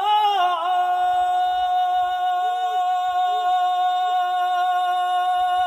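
Unaccompanied male chant voice holding one long, steady note at the end of a sung line of Islamic tasbih, after a short melodic turn at the start. A lower voice-like tone wavers briefly beneath it a few times.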